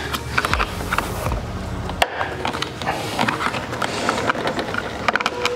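Plastic trim clips on a Nissan Skyline R34 GT-R trunk lid clicking and rattling as they are pulled and pried by hand, with a sharp snap about two seconds in.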